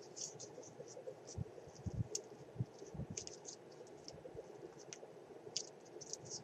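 Faint, scattered small clicks and rustles of hands handling a handmade paper-and-burlap craft flower while gluing a leaf onto it.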